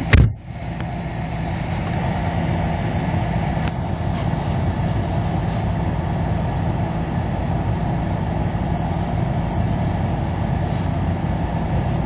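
Car engine idling steadily, heard from inside the cabin. There is one sharp thump at the very start.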